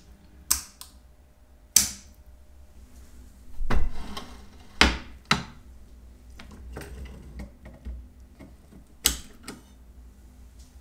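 Small metal watchmaking tools and parts clicking and tapping on a work surface: a series of sharp clicks at irregular intervals, the loudest cluster about four seconds in.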